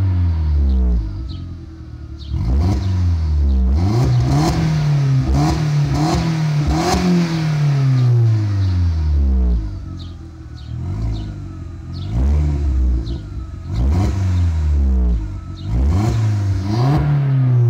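Skoda Octavia vRS's 1.8-litre turbocharged four-cylinder engine revved again and again while stationary, heard at the exhaust. The note climbs and falls away with each blip and is held high for a few seconds in the middle.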